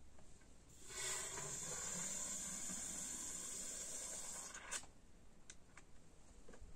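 Water jetting out of a venturi nozzle with a steady, high hiss that starts about a second in and cuts off after about four seconds; a few faint clicks follow.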